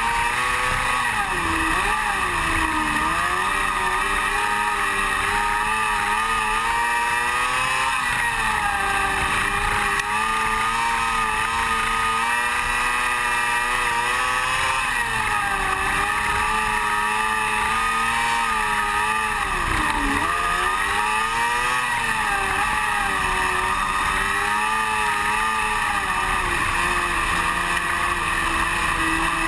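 Onboard engine of a small open-wheel dirt-track race car running hard at racing speed. Its pitch rises and falls with the throttle, dipping about two seconds in and again around twenty seconds, then climbing back.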